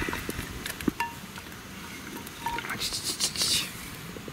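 Light clinks and taps of vegetables and a cast-iron skillet being handled on a wood-fire grill, with a short burst of hiss about three seconds in.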